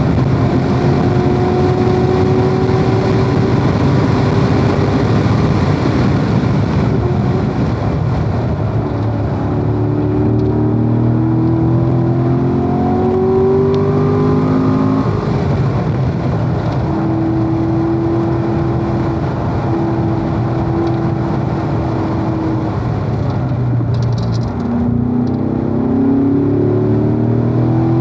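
Corvette V8 engine under hard acceleration at lapping speed, its pitch climbing in steps through the gears, then holding a steady note before easing off briefly and climbing again near the end.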